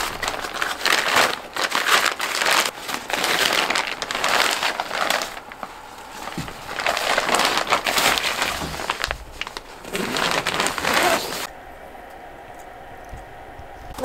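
Tent fabric and bedding rustling and crinkling in irregular bursts as the door flap of a Decathlon 2 Seconds Easy pop-up tent is pulled open and lifted, dying down about eleven seconds in.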